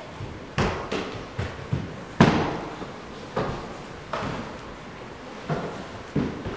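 A run of about ten heavy thuds and knocks at uneven intervals, the loudest a little over two seconds in, each with a short ring of the hall after it.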